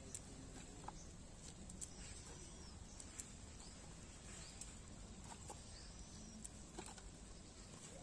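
Near silence: faint outdoor background with a few faint, short, high bird chirps and occasional soft ticks.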